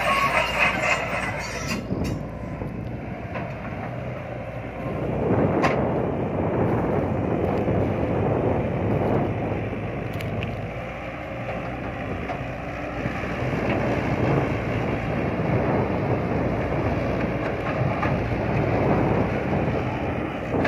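Caterpillar 312B hydraulic excavator's diesel engine running under digging load, louder from about five seconds in, with a few sharp knocks from the working bucket and arm.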